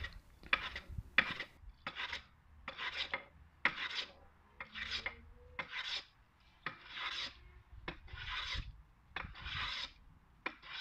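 Small hand plane taking shavings off an oak bench dog, in repeated short strokes, about one and a half a second.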